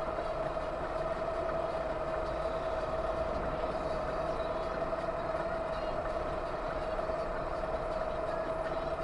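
Steady vehicle running noise, a low even rumble with a constant whine held at one pitch throughout. There are no impacts or sudden changes.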